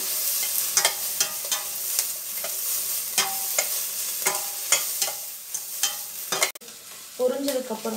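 Chopped vegetables sizzling in hot oil in a stainless steel pot while being stir-fried with a metal spatula. The spatula scrapes and clinks against the pot's sides at an irregular pace, several strokes a second, some ringing briefly.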